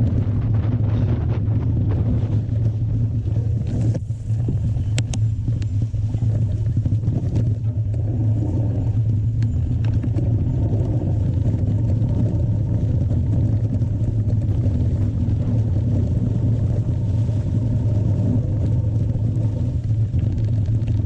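Steady low rumble of a mountain bike in motion, picked up by a camera riding along, with a few faint clicks and rattles about four to five seconds in.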